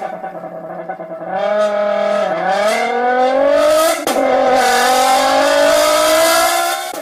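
Car engine accelerating hard through the gears: the pitch climbs, drops at each shift (about two and four seconds in), and climbs again.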